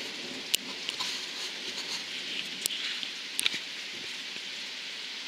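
Steady rain falling in a lull of a thunderstorm, with a few sharp, close taps of dripping water.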